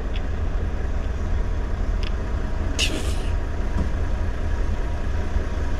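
Lorry engine running, a steady low rumble heard from inside the cab, with a short hiss about three seconds in.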